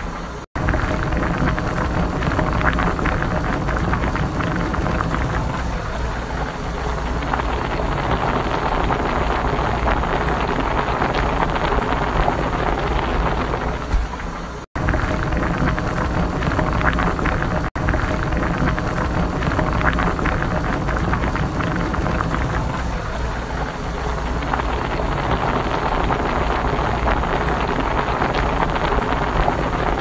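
Water at a rolling boil in a glass electric kettle: a steady bubbling rumble. It is cut by two brief silent gaps, about half a second in and near the middle.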